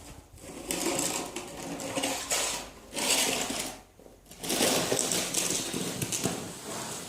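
Snow shovel scraping and pushing through heavy snow in several long rasping strokes, with a short pause about four seconds in.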